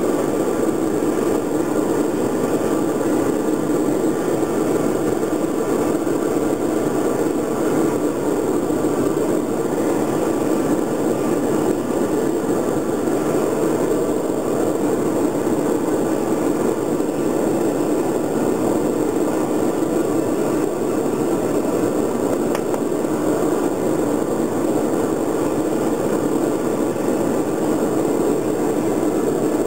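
Homemade bucket foundry furnace running with a steady, loud rushing roar of its forced-air fire while aluminium melts in the crucible.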